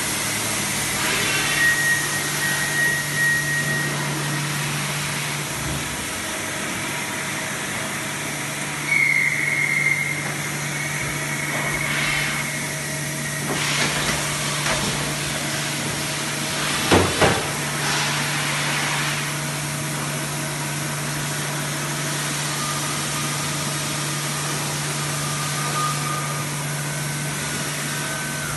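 Steady mechanical hum and hiss of an Okuma MX55 VA vertical machining center standing powered up, not cutting. A few short high whistles come and go, and two quick knocks sound about 17 seconds in.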